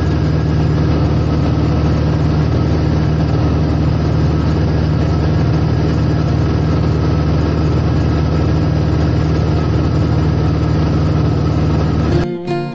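Embraer EMB-712 Tupi's 180 hp Lycoming O-360 four-cylinder air-cooled engine and propeller running steadily in flight, heard from inside the cockpit cabin. Acoustic guitar music takes over just before the end.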